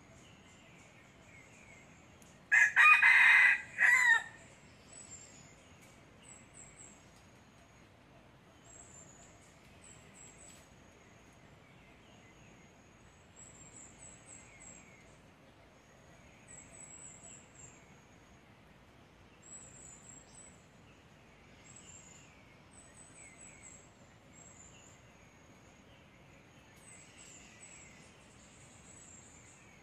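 A red junglefowl rooster crows once, about two and a half seconds in. The crow is short and loud, about a second and a half long, and ends in a brief clipped final note. Faint high chirping carries on in the background.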